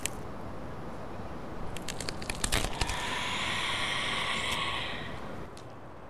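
Gory feeding sound effects of zombies eating a body: wet crunching and tearing, a cluster of sharp crackles about two seconds in. Then a drawn-out, raspy zombie screech lasting about two seconds, which stops shortly before the end.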